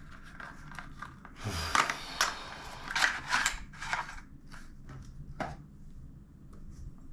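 Packaging being opened and handled: bursts of crinkling and rustling with scattered clicks, then one sharp click a little past halfway.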